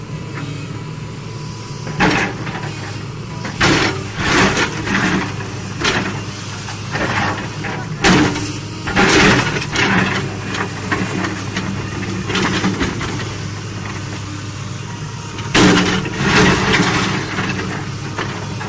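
Diesel engine of a JCB excavator running steadily under load, while its bucket teeth strike, crunch and scrape against a concrete dam wall, breaking it up in repeated bursts with water splashing.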